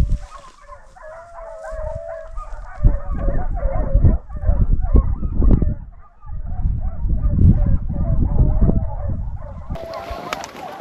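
A pack of hounds baying treed, with wavering, drawn-out bawls, while strong wind gusts buffet the microphone in loud low rumbles.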